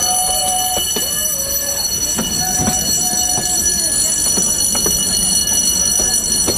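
A metre-gauge train's wheels roll slowly over rail joints and station points, with a steady rumble and a few irregular sharp clacks as the wheels cross the joints and switches.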